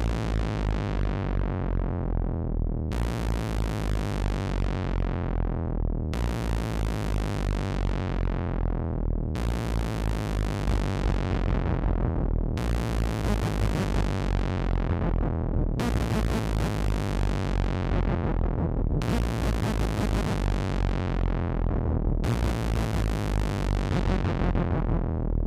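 Background music: a phrase that repeats about every three seconds, each time starting bright and growing duller, over a steady, pulsing low end.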